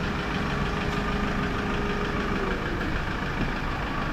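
An engine idling steadily, a continuous hum with a faint held tone that fades out a little over halfway through.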